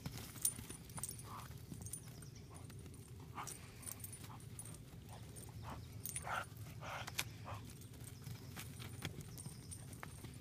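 An American bulldog puppy and a small pony playing rough together on dry dirt: scattered hoof and paw thuds and scuffles, with a few brief dog sounds, over a steady low rumble.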